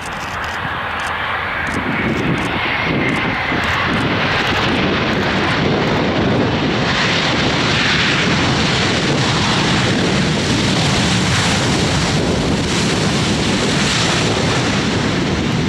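Airliner engines, growing louder over the first few seconds and then holding loud and steady.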